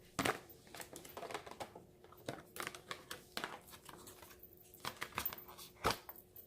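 Irregular light clicks and taps, a few a second, with faint rustling; one sharper knock comes about six seconds in.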